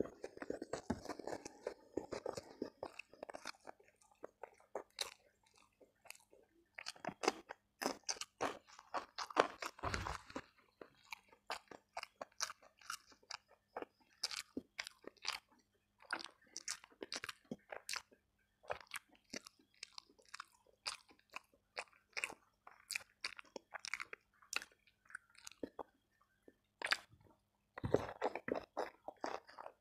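Close-miked eating sounds: a person chewing a mouthful of rice and side dishes, with wet smacking and crunching. The sound is a dense, irregular run of short clicks and crackles.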